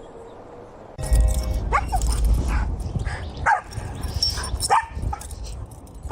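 A dog barking in several short, high yapping barks, spaced a second or so apart, over a low rumble that starts about a second in.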